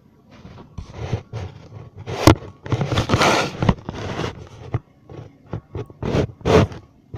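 Scraping and rustling handling noise close to the microphone, in a string of irregular short bursts, the loudest in the middle.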